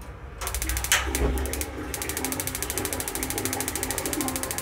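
Gas geyser's electronic igniter sparking at the burner, a rapid even clicking of about a dozen sparks a second, with a brief whoosh and thump about a second in as the gas catches. The igniter keeps sparking after the burner lights, the symptom of a fault in which the flame burns for a few seconds and goes out while the igniters go on clicking.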